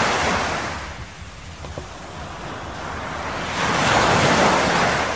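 Surf washing up on a beach. One wash ebbs away, the next swells in about three and a half seconds in, then it fades again.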